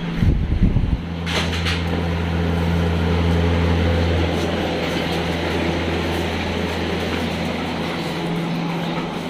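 Steady hum and whoosh of a running electric fan, with a low drone underneath. A couple of brief knocks sound about a second and a half in.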